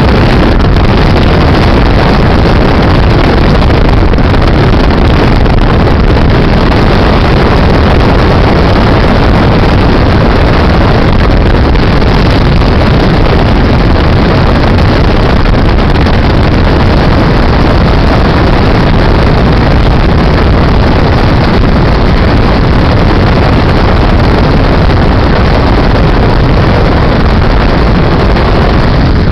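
A car driving at speed on a highway, heard from inside: a steady, loud rush of wind and road noise, with wind buffeting the microphone.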